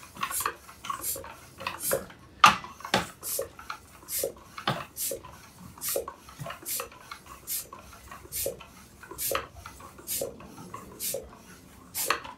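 PRO Team Compressor floor pump being worked in steady strokes, about one every 0.8 seconds, each stroke a short whoosh of air with a clack. It is pumping to seat the bead of a stubborn tubeless road tire that is leaking sealant and not yet sealing.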